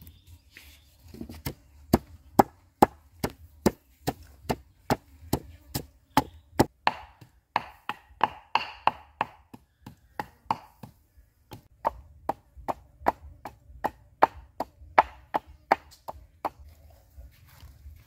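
Knife chopping food on a cutting board in steady strokes, about two to three a second, with a short pause about two-thirds of the way through.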